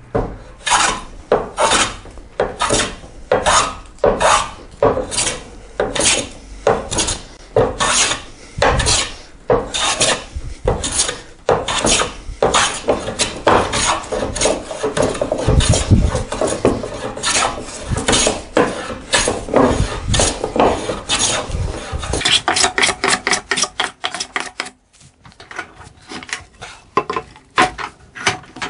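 Hand scrub plane taking heavy cuts across the face of a wide board, a steady run of rasping plane strokes about two a second as it knocks down the high corners of a twisted board. Near the end the strokes come quicker and lighter, then break off briefly before some lighter scraping.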